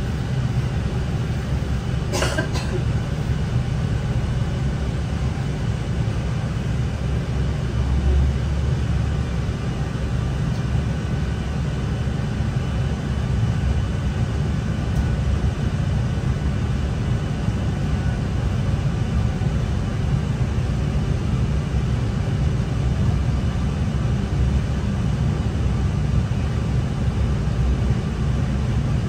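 NI Railways Class 3000 diesel multiple unit running along the line, heard from inside the carriage as a steady low rumble of engine and wheels on rail. A brief knock comes about two seconds in.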